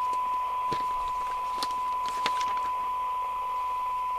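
Steady 1 kHz test tone over hiss from the Danita Mk5 CB radio's receiver output. The set is receiving a signal-generator carrier modulated with a 1 kHz tone, turned down to its 12 dB SINAD sensitivity point. A few faint clicks come between one and two and a half seconds in.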